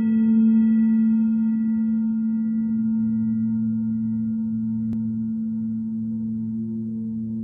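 A steady, ringing low drone with bell-like overtones that slowly fades, over a softly pulsing lower layer; near the end new soft notes come in, as in an ambient music opening. A single faint click about five seconds in.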